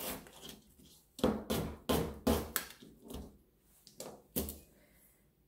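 Kitchen knife slicing an onion on a plastic cutting board: about seven sharp knife strokes against the board at an uneven pace.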